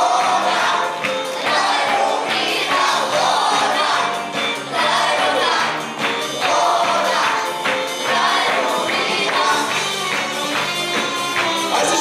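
A group of children singing together in chorus into microphones over a loud backing track with a steady beat.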